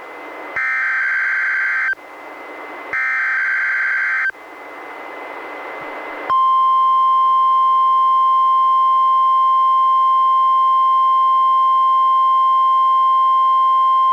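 NOAA Weather Radio alert being received on a weather radio during a Required Monthly Test. First come two bursts of the EAS SAME digital header, harsh data screeches about a second long with radio hiss between them. After about two seconds of hiss, the steady 1050 Hz NWR warning alarm tone starts about six seconds in and holds as one loud, unbroken tone.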